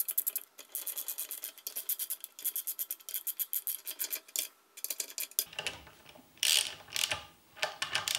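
A socket ratchet clicking in quick runs as the swivel housing's top-pin bolts are spun down by hand. About five seconds in it gives way to a few louder scraping rubs of metal being handled.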